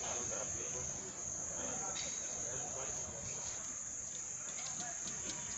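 A chorus of insects chirring steadily at one high pitch, over faint outdoor background noise.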